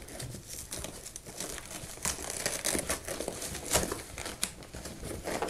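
Rustling and scraping of a camera backpack's padded fabric compartment and dividers as a DSLR is fitted inside, with irregular soft crinkles and a few sharper clicks.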